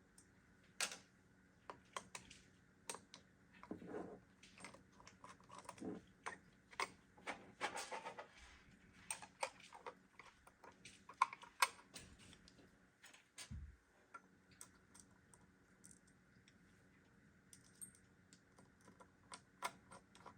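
Faint, irregular light clicks and taps of small plastic and metal computer parts being handled and fitted together, with a dull thud about two-thirds of the way through.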